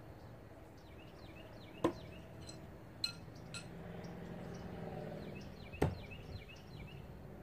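Two throwing knives striking a wooden log target, one sharp hit about two seconds in and another about four seconds later, with a couple of lighter clinks in between.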